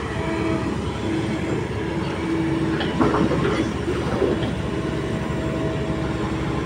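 Kobelco SK200 excavator's diesel engine running under load, with a steady whine from the machine. About three seconds in come knocks and scraping as the bucket digs into mud, logs and water.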